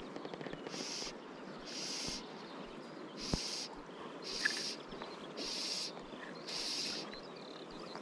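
A short, high buzzing call repeats about once a second over the steady rush of flowing river water. There is a single sharp knock about three seconds in.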